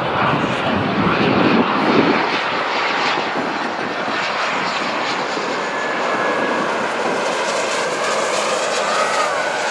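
The twin rear-mounted Rolls-Royce BR710 turbofans of a Bombardier Global Express XRS business jet, flying low on approach with its landing gear down, making a steady jet roar.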